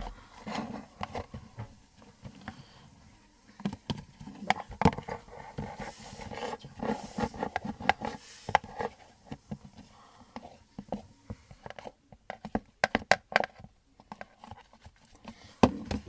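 Slime being handled and kneaded by hand: irregular sticky clicks, crackles and squelches, coming thickest near the end.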